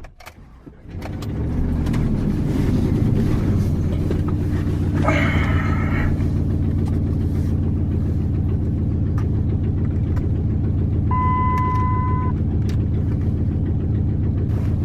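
A truck's engine starting about a second in and then idling steadily. Later, a single electronic beep sounds for about a second over the idle.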